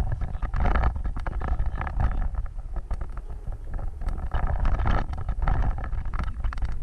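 Vehicle driving over a rough off-road trail: a steady low rumble with frequent knocks and rattles as it jolts along.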